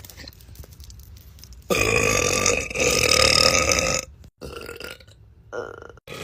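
A girl letting out one long, loud burp that starts about two seconds in and lasts a little over two seconds.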